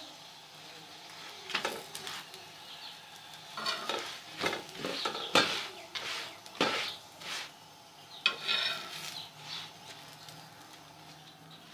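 Paratha frying in ghee on a tawa griddle, a low steady sizzle, with a series of sharp scrapes and knocks of a utensil against the pan, mostly in the middle of the stretch.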